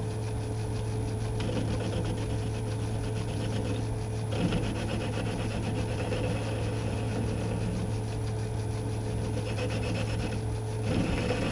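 Metal lathe running with a steady motor hum while the cutting tool takes a facing cut across the end of a metal bar, the scraping cut noise coming in stretches with brief pauses.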